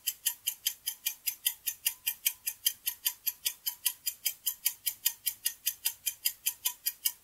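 Clock-style tick sound effect of a quiz countdown timer, ticking evenly and quickly at about four to five crisp, high ticks a second while the time to answer runs down.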